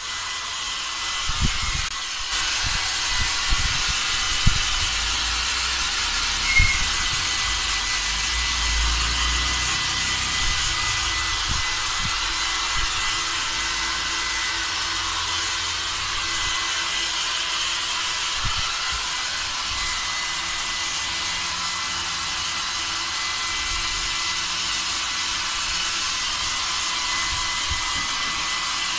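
Handheld hair dryer running steadily, a constant airy hiss with a thin high whine, blowing on an animal's wet coat. A few soft thuds in the first seven seconds.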